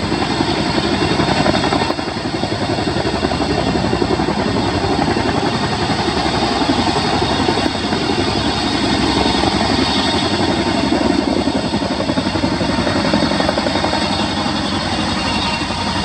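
Military helicopter running close by: a fast, steady rotor beat over a high, steady turbine whine.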